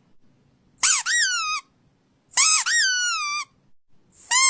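Squeaky toy squeezed three times. Each high squeak jumps up in pitch and then slides down, lasting about a second, and the third starts near the end.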